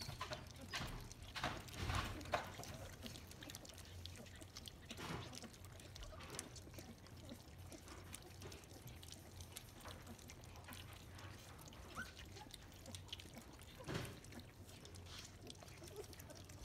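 Young puppies lapping formula, a faint run of small wet smacks and clicks, busiest about two seconds in, with a short rising squeak about twelve seconds in.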